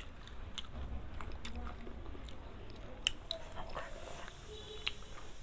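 Close-miked chewing, with wet mouth clicks and smacks, of someone eating a mouthful of roast chicken.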